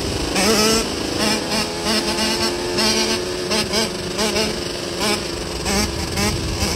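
Dirt bike engines revving up and down in quick, repeated throttle blips over a steady engine drone, the throttle being worked to hold a wheelie.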